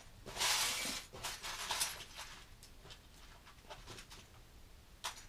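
Small plastic Lego pieces being handled and fitted together: a brief rustling hiss near the start, then scattered faint clicks and a sharper click near the end.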